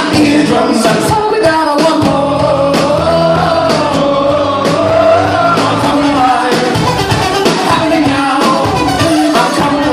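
Indie rock band playing live with a lead vocal singing over the drums and instruments. It is loud and continuous, heard from within the crowd at a concert.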